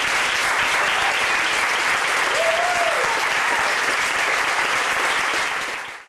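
Audience applauding steadily, with one voice in the crowd calling out a rising-then-falling cheer about two and a half seconds in; the clapping stops abruptly near the end.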